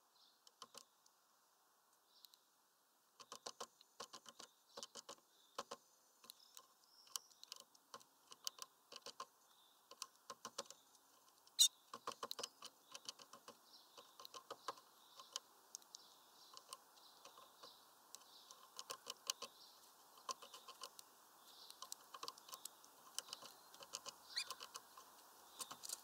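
Great tit pecking at food on a wooden twig perch: faint, irregular quick taps, sparse at first and coming thicker in the second half, with one louder tap about twelve seconds in.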